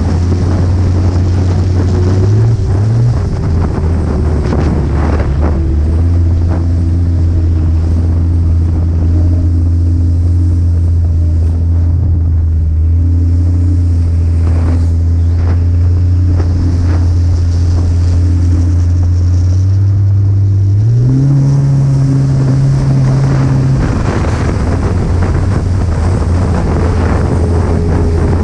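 Snowmobile engine running at a steady cruise, its note dropping about three seconds in, then rising briefly around twenty-one seconds before settling back, with wind buffeting the microphone.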